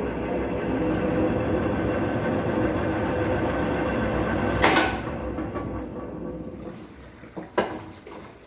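Electrolux LTC12 washing machine running with a steady drone and a hum of bearings that are loud enough to be called roaring, a sign of worn bearings. A sharp clatter comes about halfway through, after which the running sound dies down, and a short knock follows near the end.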